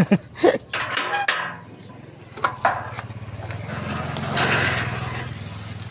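A metal gate clanking and rattling as it is handled, followed by a small engine running steadily, growing louder to a peak about four and a half seconds in and then easing off.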